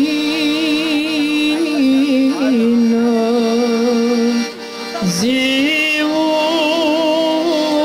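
Slow Romanian folk-style music: a melody of long, wavering held notes that steps between pitches, with a brief dip in pitch about five seconds in.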